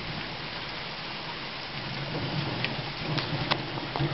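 Heavy rain pouring steadily in a thunderstorm, with a few sharp drip taps in the second half.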